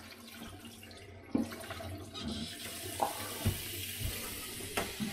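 Kitchen tap running onto a dirty plate and frying pan in a stainless-steel sink, with a few sharp knocks of the dishes being handled. The water noise builds from about halfway through.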